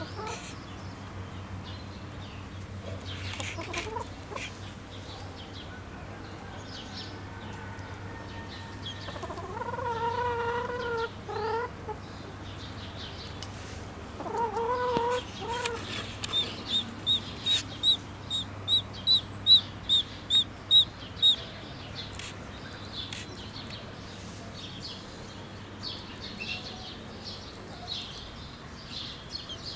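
Poultry calling: two drawn-out clucking calls, then a quick run of about a dozen high peeps, about two a second, the loudest part. Scattered chirps follow, over a steady low hum.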